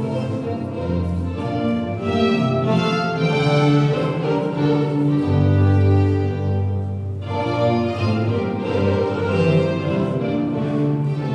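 Baroque-style bowed string music, violins over a low bass line, playing a courante.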